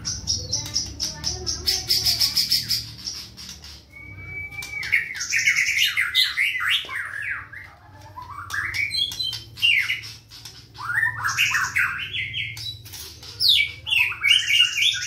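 Caged black-tailed white-rumped shama singing a fast, dense song with harsh notes. A rapid, high, buzzy chatter fills the first few seconds, then quick runs of sweeping whistled notes follow.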